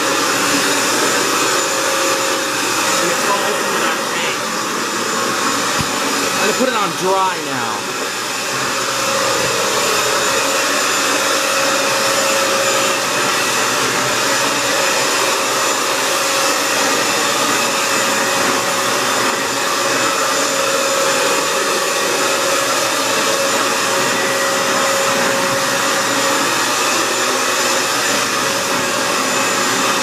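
Hoover FloorMate Edge wet hard-floor cleaner running steadily, its suction motor giving a constant whine and hum as it washes and picks up solution from a tile floor.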